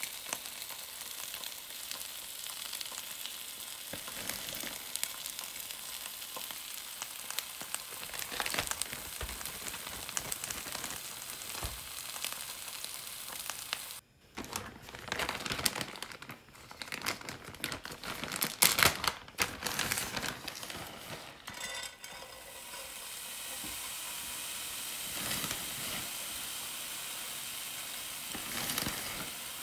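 Eggs with spinach frying in a white ceramic pan: a steady sizzle with small crackles. About halfway there is a stretch of irregular clicks and scrapes, then the steady sizzle returns as shredded cheddar goes into the hot pan.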